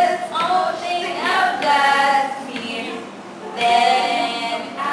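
Young women singing a song together, holding long notes with short breaks between phrases.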